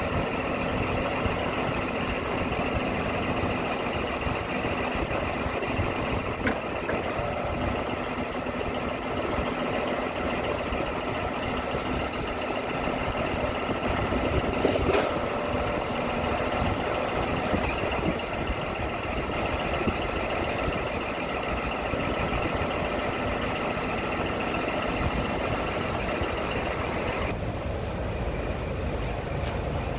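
Scania P-series truck's diesel engine idling steadily, with a low rumble and a steady higher whine over it; the whine drops away near the end.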